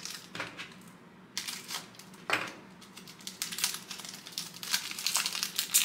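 Trading-card pack wrapper being torn open and crinkled by hand: a run of crackles, sparse at first and growing dense over the last few seconds.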